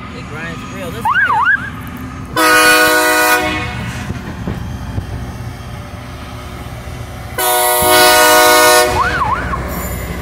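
Loram rail grinder's multi-chime air horn sounding two long blasts, one about two seconds in and one about seven seconds in, each a little over a second long. A steady low rumble of the train passing runs from the first blast onward, and a short warbling tone rises and falls just before each blast.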